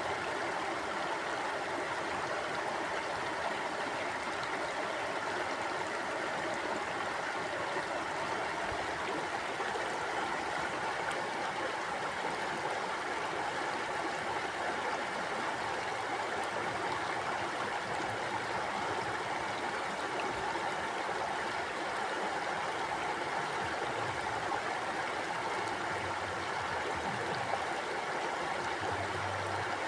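River water flowing and rushing over rocks in a steady, even wash, with light gurgling.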